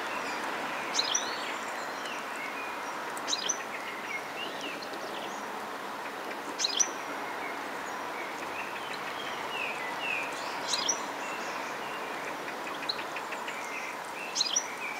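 Small birds chirping in short calls every few seconds, over a steady background hiss of outdoor noise.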